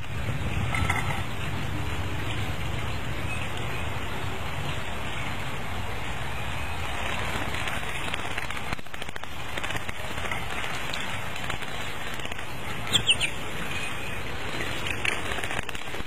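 Eastern bluebirds bathing in a concrete birdbath: a steady patter of splashing water and fluttering wings. Near the end come two short, sharp bird chirps, the loudest sounds.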